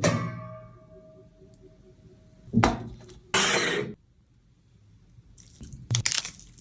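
Kitchen clatter: something strikes metal cookware and rings on with one fading tone for about two seconds. A sharp knock follows, then a short hiss-like burst lasting under a second, and light clattering near the end.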